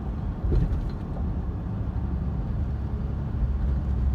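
Steady low rumble of road and engine noise from a moving car, with a brief knock about half a second in.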